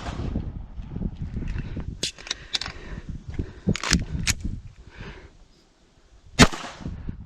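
Pistol shots in a timed competition stage: a quick string of about six shots between two and four and a half seconds in, then a single louder shot near the end, with shuffling movement between them.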